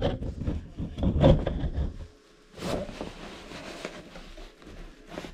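Singer sewing machine stitching a burst through heavy tent fabric, stopping about two seconds in, with a sharp click a moment later.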